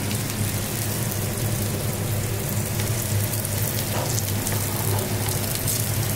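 Sticky rice pancake batter sizzling and crackling steadily in hot oil in a frying pan, over a steady low hum.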